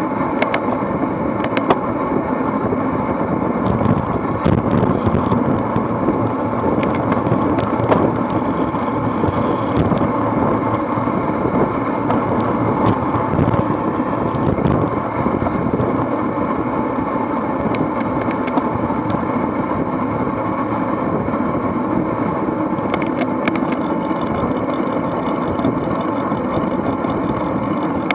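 Steady wind and road rush from a road bicycle riding fast in a pack, heard through an action camera's microphone: wind buffeting the mic and tyres on asphalt, with scattered sharp clicks.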